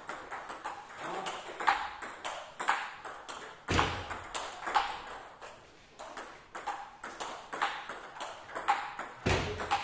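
Table tennis rally: the ball clicks off the bats, one faced with Giant Dragon Meteorite long-pimple rubber, and bounces on the table about once a second, with fainter ball clicks in between from another rally. A couple of heavier dull thumps come in, near the middle and near the end.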